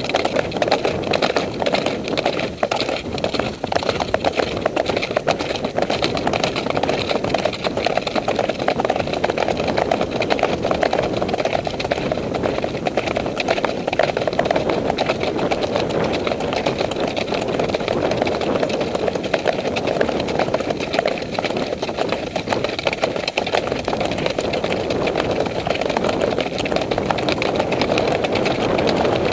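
Continuous rushing and rumbling of wind and movement on a camera carried by a rider on horseback, with the horses' hoofbeats on a dirt trail mixed in.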